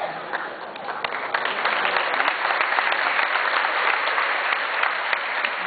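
Audience applauding: a dense patter of many hands clapping that starts suddenly, swells over the first couple of seconds and begins to die down near the end.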